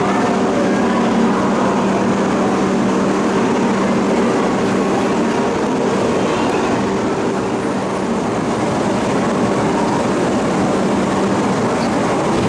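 Shinkansen train running: a steady rumble of running noise with a low, even hum underneath.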